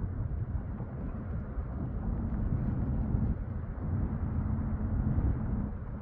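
Steady low rumble of outdoor background noise, with a faint hum coming and going about two seconds in and again near the end.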